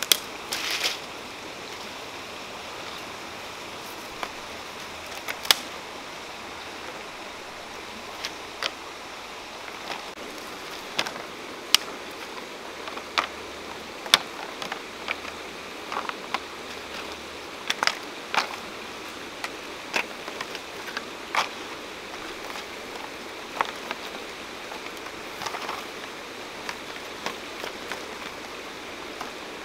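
Irregular sharp clicks and knocks of large flamboyant-tree seed pods being picked up off the ground and gathered into an armful, knocking against each other and against twigs, over a steady hiss.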